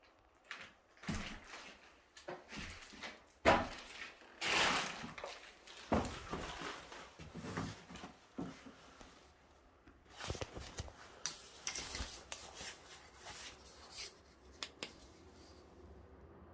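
A run of irregular scrapes, rubs and knocks, with a sharp knock about three and a half seconds in followed by a longer scrape.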